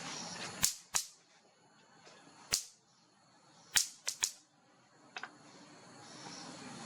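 A string of sharp clicks at uneven intervals, six loud ones followed by a fainter pair near the end, over a low steady hiss.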